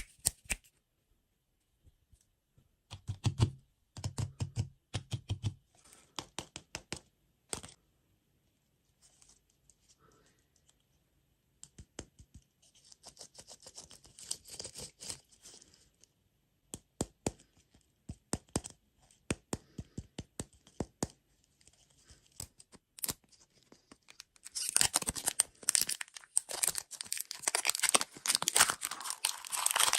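Food packaging being handled and torn open: scattered taps and clicks, then a long stretch of dense crinkling and tearing near the end.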